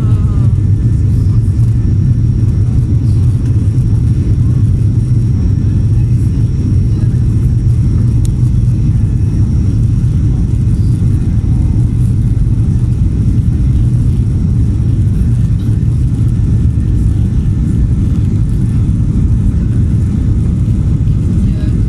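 Airliner cabin noise while taxiing: a steady low rumble of the jet engines and the aircraft rolling along the taxiway, heard from inside the cabin, with a faint steady high whine above it.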